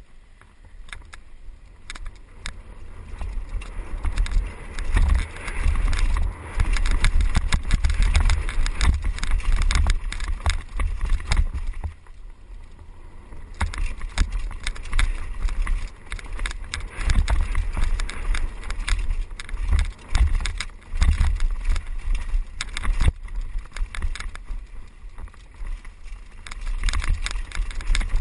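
Wind buffeting a helmet-mounted microphone as a mountain bike descends a dirt trail at speed, with frequent clattering knocks from the bike over rough ground. It grows louder over the first few seconds.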